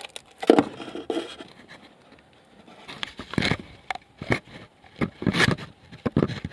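Clutch master cylinder being forced out from behind the brake booster: metal scraping and knocking in a few separate bursts as it is worked past the tight spot.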